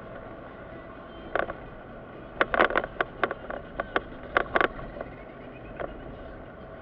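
Steady engine and road noise inside the cabin of a moving Mitsubishi car. Through the middle comes an irregular quick run of about a dozen short, sharp clicks or taps, most of them bunched together, with a single one just before and another just after.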